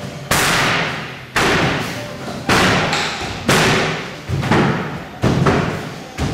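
Heavy thuds about once a second, seven in all, each ringing out for most of a second.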